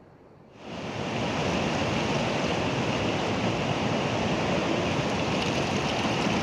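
Swollen mountain river rushing over boulders: a steady, loud wash of fast water that comes in suddenly about half a second in.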